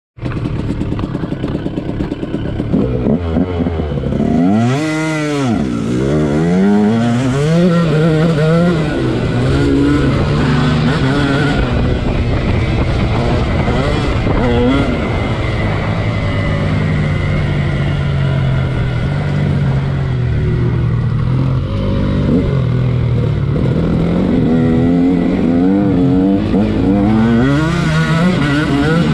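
Off-road motorcycle engine revving up and down as the bike is ridden, heard from on board the bike. Its pitch rises and falls repeatedly with the throttle and gear changes, with one big rise and fall about five seconds in and a steadier stretch in the middle.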